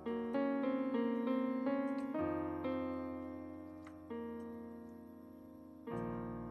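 Background music: piano playing a quick run of notes, then chords struck about every two seconds and left to fade.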